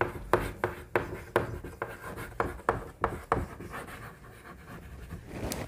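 Handwriting: a run of quick strokes and taps, about three a second, thinning out after about three and a half seconds, with one last sharp click near the end.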